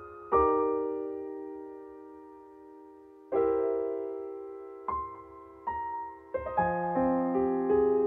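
Soft background music on electric piano: slow chords struck and left to fade, then a busier passage with low bass notes coming in about six seconds in.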